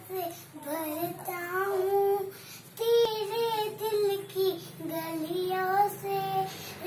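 A young girl singing alone without accompaniment, holding long notes in a sing-song melody, with a short pause about two and a half seconds in.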